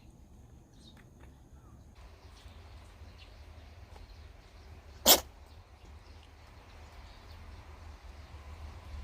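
A house cat sneezing once: a single short, sharp burst about five seconds in, over a faint low rumble.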